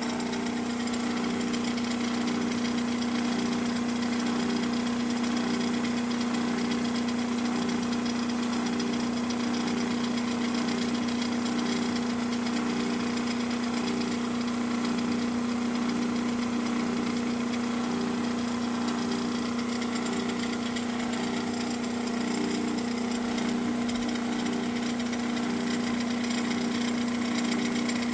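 Clausing 8520 vertical milling machine running, its end mill cutting an aluminium part: a steady machine hum with a faint regular pulse about once a second, and a single sharp click a few seconds before the end.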